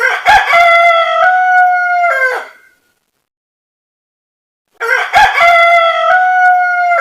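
Rooster crowing twice, each crow about two and a half seconds long with a pause of about two seconds between; the two crows are the same recording repeated.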